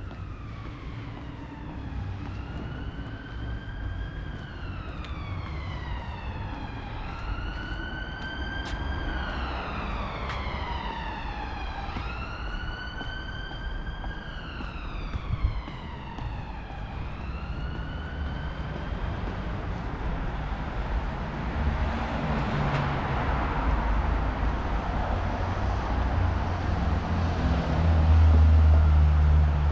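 An emergency vehicle's siren wails, rising and falling about every four seconds, and fades away after about twenty seconds. Toward the end a vehicle's low engine rumble grows louder over steady street traffic.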